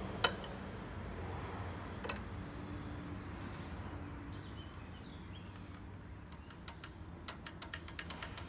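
Handling clicks on a stopped lawn mower with its engine not running: one sharp click just after the start, another about two seconds in, and a quick run of light clicks near the end.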